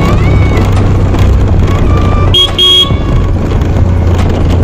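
Steady wind rush and engine rumble of a motorbike being ridden. About two seconds in, a vehicle horn beeps twice in quick succession.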